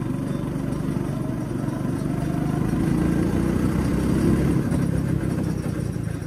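Go-kart engine running as the kart drives around the track, the engine note growing louder over the first four seconds and then easing off.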